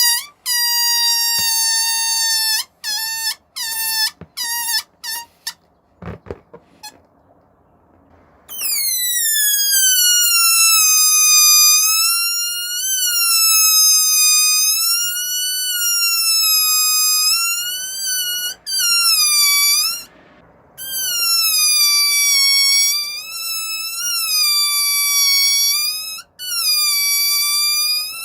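Air squealing out of a balloon's neck held tightly stretched: a loud, high whine that falls slowly in pitch, then breaks into a string of short squeaks. After a pause of about three seconds with a few soft knocks, the squeal comes back long and wavering in pitch, stopping briefly twice.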